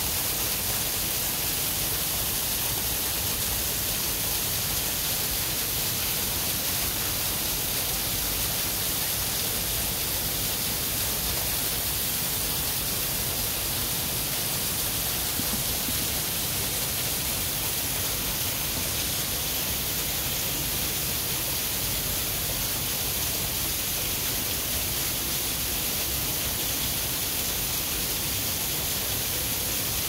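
Small waterfall pouring down a rock face onto rocks and into a pool: a steady, hissing rush of falling water.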